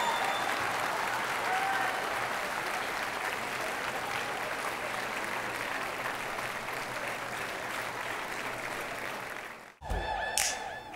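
Audience applauding after a song, slowly dying down, then cut off abruptly near the end.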